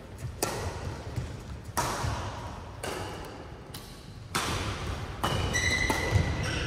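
Badminton rally in a large hall: rackets strike the shuttlecock in sharp cracks, roughly once a second and unevenly spaced. Near the end a brief high squeak comes from court shoes on the mat.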